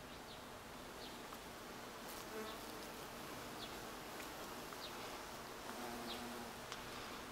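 Bees buzzing around blooming wisteria: wingbeat hums that drift in and out as they pass, louder about six seconds in. Short high chirps sound now and then.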